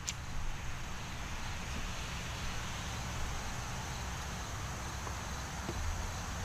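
Open-air ambience: wind rumbling on the microphone under a steady hiss, with a brief click at the very start.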